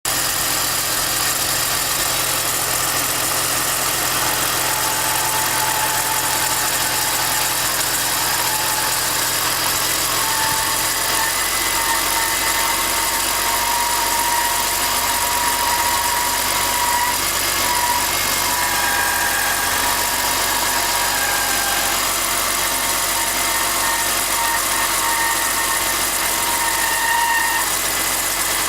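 BMW E46 engine idling with a high-pitched whine and chirp over the running, the unwanted noise its owner is trying to trace. The whine wavers and drops in and out, loudest from about ten seconds in.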